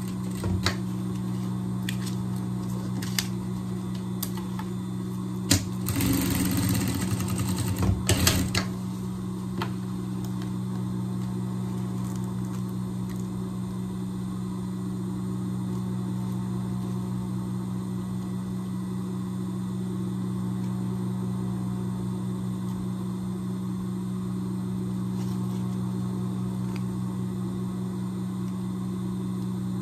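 Industrial lockstitch sewing machine stitching in one rapid burst of about two and a half seconds, some six seconds in, over a steady low hum. A few sharp clicks come before the burst.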